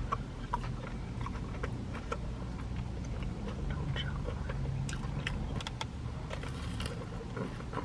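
Close-up eating sounds: chewing with many small wet mouth clicks while a strand of noodle is slurped, then a bite into a corn dog, over a low steady hum.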